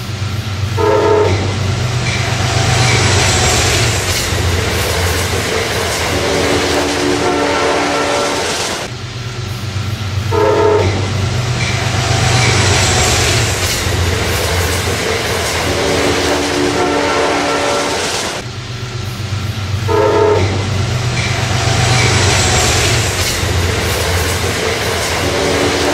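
A train horn sounds in blasts, a short one and then longer ones, over the steady rumble of a passing train on the rails. The same horn-and-rumble passage repeats about every nine and a half seconds.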